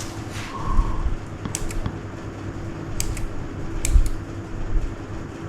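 Keys pressed on a Keychron K3 low-profile mechanical keyboard: about three pairs of sharp clicks, over a steady hum.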